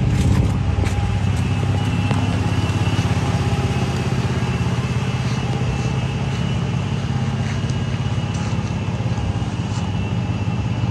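Ford F-150 Raptor pickup's engine idling steadily, a low even rumble.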